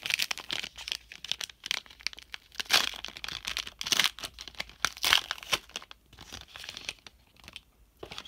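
Foil wrapper of a Panini Rookies and Stars football card pack crinkling and tearing as it is opened by hand: a run of sharp crackles, loudest about three, four and five seconds in.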